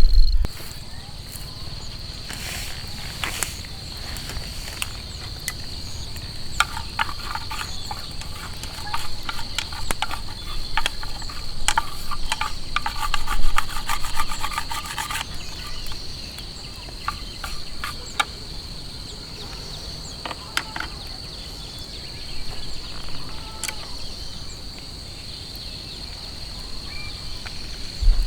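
An insect, likely a cricket, trilling steadily on one high note, with a run of small clicks and taps from about six to fifteen seconds in.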